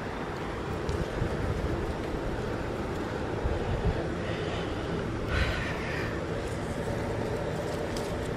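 Steady outdoor background noise with a fluctuating low rumble, like wind on the microphone or distant traffic, and one brief higher-pitched sound about five and a half seconds in.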